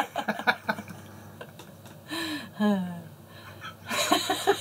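A man and a woman laughing in short bursts, with a lull in the middle and a falling laughing cry about two seconds in, building again near the end.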